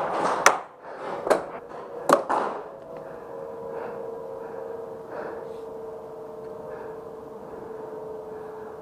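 Four sharp cracks of paintball fire in the first two and a half seconds, two of them close together, followed by a steady pitched hum.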